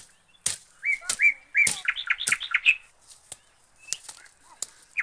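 A small bird chirping a quick run of short notes, between sharp snaps and cracks as dry twigs and brush are broken and pulled away.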